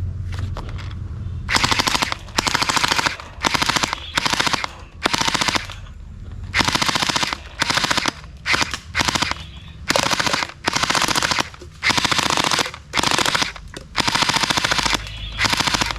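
Toy AK-47 machine gun firing many short bursts of rapid rattling fire, each under a second long, over a low steady hum.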